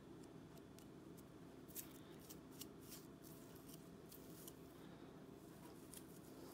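Fingernails and a rat-tail comb scratching and scraping at a flaky, scaly scalp: faint, quick, crisp scratches in irregular runs, over a low steady hum.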